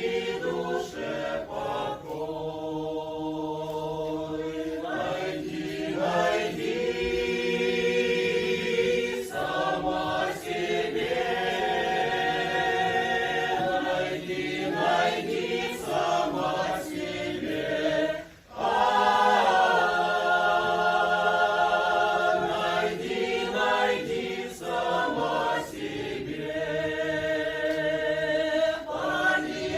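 Folk vocal ensemble singing together in long held phrases, with a short break between phrases about eighteen seconds in.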